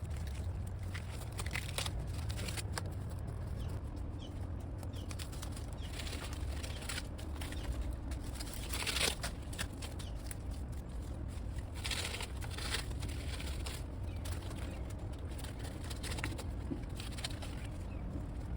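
Irregular rustling and crackling of bird of paradise fronds and leaves being handled and cut during pruning, over a steady low rumble.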